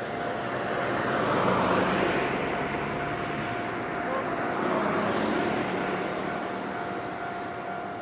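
Japanese level-crossing warning bell sounding its standard electronic ringing tone while the signals flash. A broad rush of passing vehicle noise swells up twice over it, about a second and a half in and again about five seconds in.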